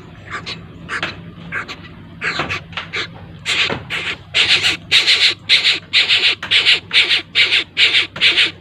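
Young bird of prey begging while being hand-fed: harsh, rasping calls, scattered at first, then about two a second and louder from about four seconds in.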